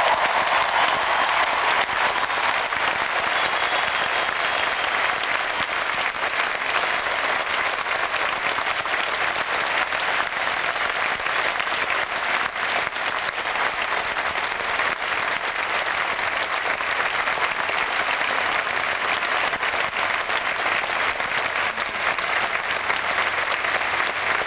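A large crowd applauding steadily, a dense, unbroken clapping.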